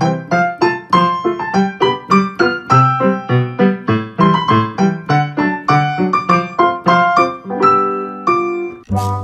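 Background piano music, a quick even run of single notes at about three a second.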